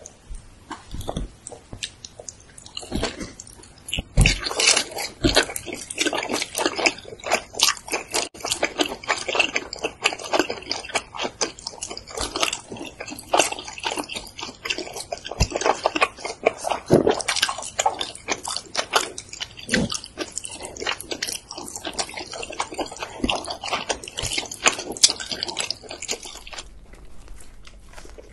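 Close-miked chewing and biting of cheese-topped pizza, with wet mouth sounds and many quick clicks and crackles. Near the end the sound becomes sparser and quieter.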